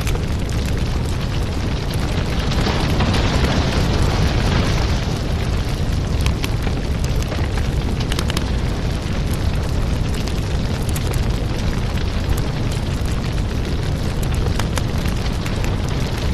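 Firewood burning: a steady low rumble of flames with scattered crackles and pops, and a louder hiss for a couple of seconds about three seconds in.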